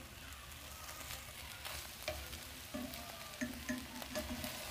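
Egg and mayonnaise pancake sizzling in a nonstick frying pan, with a plastic spatula scraping and clicking against the pan as it nudges the pancake.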